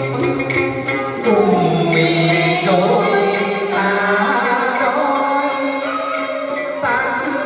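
Music of a Vietnamese song: a melody of long held notes that slide in pitch, over a steady accompaniment.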